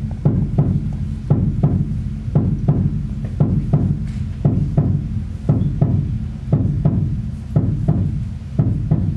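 A low, steady droning sound with a regular knock about three times a second, like a slow mechanical or drum-machine pulse, as in an electronic soundtrack.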